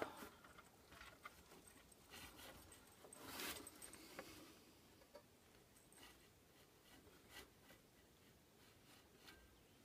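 Near silence with faint scattered metal clicks and a short rustle about three seconds in: small Allen keys being handled and tried in the setscrew of an RV furnace's blower fan.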